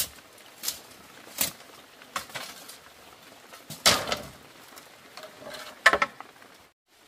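Bamboo poles knocking and clattering as they are handled: a string of sharp knocks, a longer, louder clatter about four seconds in, and another knock near the end.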